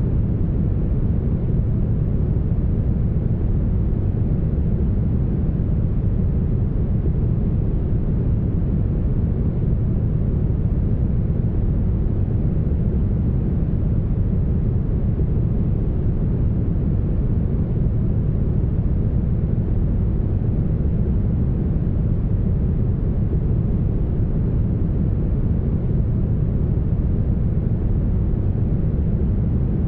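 Steady, smoothed brown noise: a deep, even rush with its weight low down and no high hiss.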